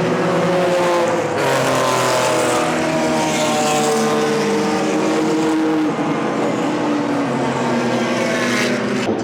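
Historic racing cars' engines running hard as they pass on the circuit, several engine notes at once, their pitch falling slowly over several seconds.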